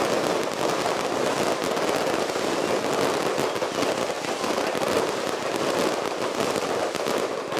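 Fireworks display: a dense, continuous crackling of many bursts going off together, steady and loud throughout.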